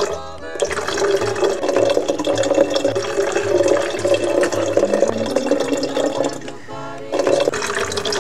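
Background music with a repeating bass line, under a loud rushing noise that breaks off briefly about six and a half seconds in and cuts off just after the end.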